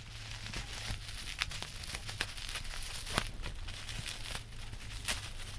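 Bubble wrap and plastic packaging crinkling and rustling as it is unwrapped, with irregular small crackles and clicks.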